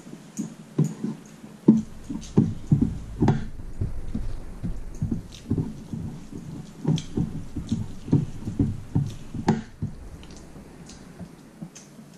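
Close-up eating sounds: rice being mixed by hand on a steel plate and chewed, an irregular string of soft smacks and clicks. A low rumble sits underneath from about two seconds in until about ten seconds.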